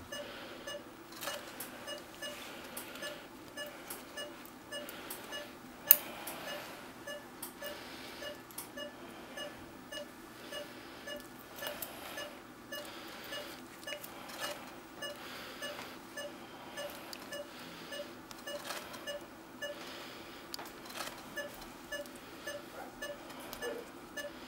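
Operating-room patient monitor beeping with each heartbeat, a steady run of short, same-pitched beeps at about two a second. A single sharp click comes about six seconds in.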